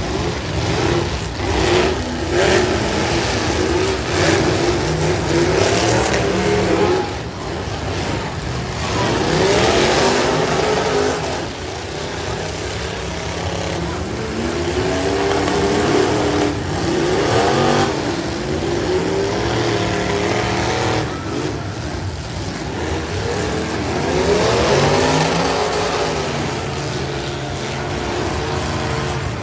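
V8 demolition derby cars revving hard over and over, the engine pitch repeatedly rising and falling, with the crunch of cars smashing into one another now and then.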